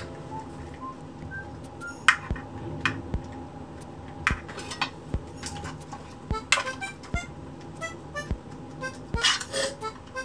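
Kitchenware clattering: dishes, pans and utensils knocking and clinking in a dozen or so irregular sharp hits, over light background music.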